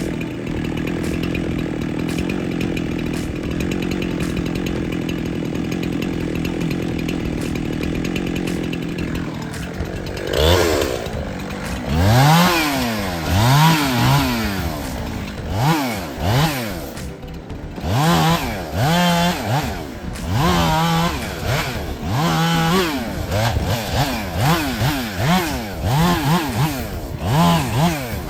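Two-stroke chainsaw running at a steady pitch for about ten seconds, then revving up and down over and over, its pitch rising and falling every second or two.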